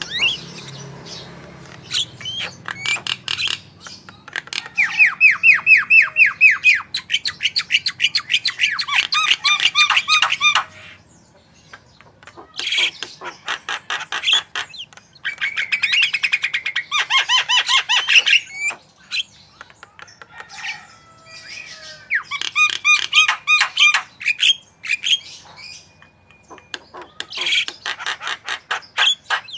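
Javan myna singing loudly in phrases of rapid chattering, trilling notes, a few seconds each with short pauses between, its song laced with notes copied from other birds.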